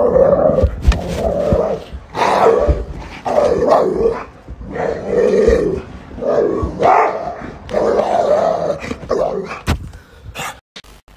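A dog barking and growling in a run of loud bursts, about one a second, while jumping on a person, with a few thumps of movement. The sound cuts off suddenly near the end.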